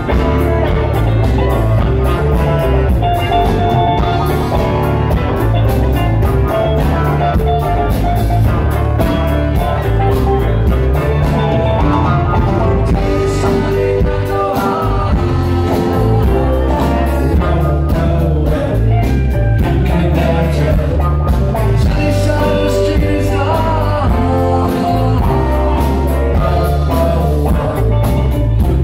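Live rock band playing a steady groove, with electric guitars, saxophone, drum kit and keyboard.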